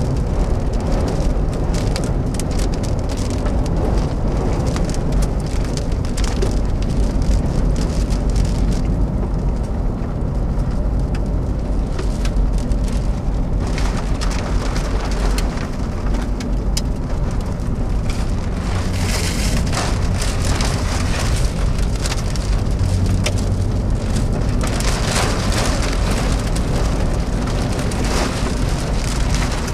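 Rain striking a car's windshield and roof as many separate sharp ticks, over a steady low rumble of the car driving and wind; the rain gets heavier about two-thirds of the way through.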